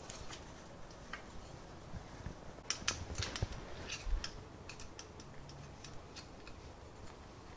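Hex key clicking and scraping against screws in an aluminium V-slot extrusion frame as they are tightened: scattered small metallic ticks, most of them in a quick cluster around the middle.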